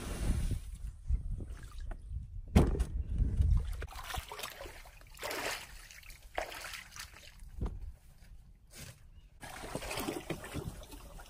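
Water sloshing and splashing around a small boat, with a few hollow knocks on its hull, the loudest about two and a half seconds in.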